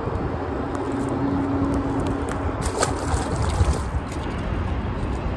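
Water splashing and trickling at the river's edge as a largemouth bass is let go back into the water, over a steady low rumble.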